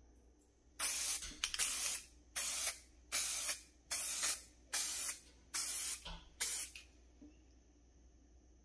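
Aerosol can of hydro-dipping activator hissing in about eight short, even sprays, each about half a second long, misted over hydrographic film floating on water to melt its ink before the dip.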